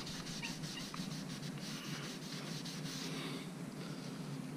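Gloved hand and rag rubbing wood stain into a freshly sanded wooden mantel: a fast run of faint rubbing strokes, easing after about three seconds, over a low steady hum.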